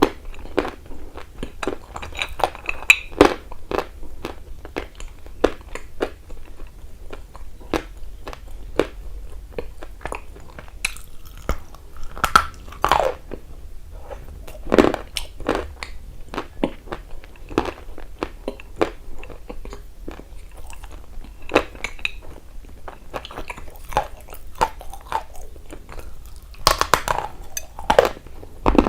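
Close-miked biting and chewing of something dry and hard: a dense, irregular run of crisp crunches, with a few louder bites along the way.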